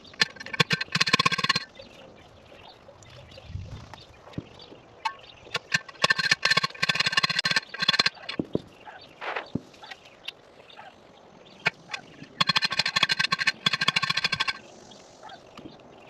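A goat bleating three times, each long pulsing call lasting one to two seconds.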